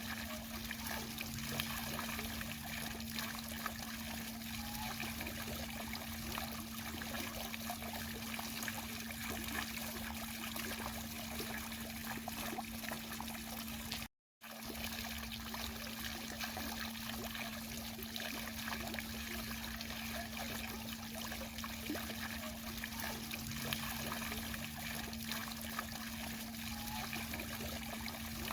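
Garden fountain water trickling and splashing steadily, over a constant low hum. The sound cuts out completely for a split second about halfway through.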